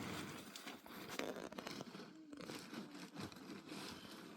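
Soft, irregular crunching and rustling, made of many small crackles and scrapes.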